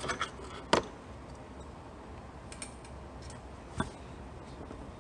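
A few scattered sharp metallic clicks and taps from hand tools and parts being handled on the nuts and studs of the transmission thermostat housing in the engine bay. The loudest click comes just under a second in and another near the end.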